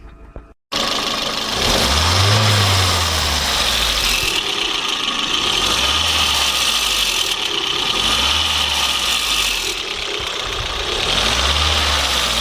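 Volvo S40 2.0T's turbocharged engine revved up and let back down four times, its pitch rising and falling each time under a steady high hiss. This is the strange noise that the owner hears from the turbo whenever the engine is above about 1800 rpm; he is unsure whether the turbo is broken or needs maintenance.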